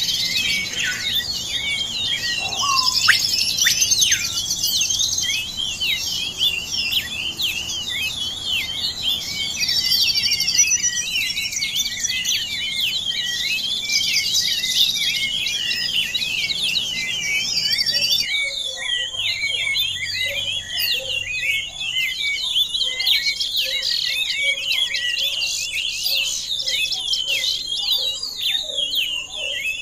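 A dense chorus of many birds chirping and calling at once, short high chirps and whistles overlapping. About eighteen seconds in, the low background noise drops away as a second stretch of chirping takes over.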